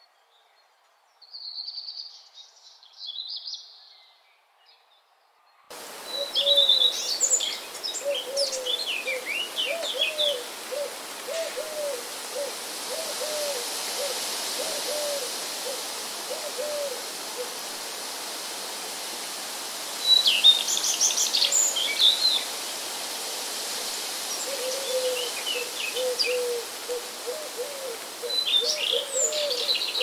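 Birdsong from a nature recording: a few faint high chirps, then at about six seconds a steady rushing background begins. Over it, a bird gives quick strings of short, low calls, and songbirds chirp in high bursts at intervals, loudest about twenty seconds in.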